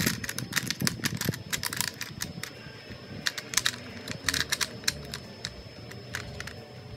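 Hard plastic pieces of a DIY stamp printing kit clicking and clattering as they are handled and set down in the kit's plastic case: a quick, irregular run of small clicks, densest in the first two seconds, with another cluster a little after the middle.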